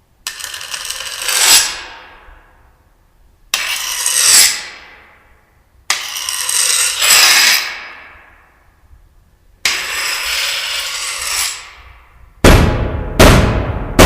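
Homemade sound effect of metallic clattering: five strokes spaced a few seconds apart, each starting suddenly and dying away over a second or two, then three quick, louder crashes close together near the end.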